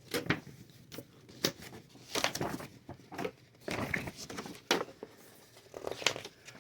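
A large folded paper wargame map being unfolded: the paper crinkles and rustles in irregular snaps.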